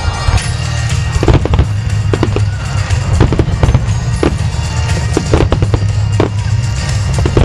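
Aerial firework shells bursting in a barrage: a dozen or so sharp bangs at irregular intervals, over steady loud music with heavy bass.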